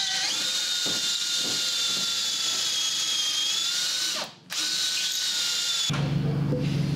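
Makita 18V cordless drill running steadily as it bores through a wooden channel with a long bit, its motor whine briefly cut off a little after four seconds and then resumed. It stops abruptly near six seconds, giving way to a steady low hum.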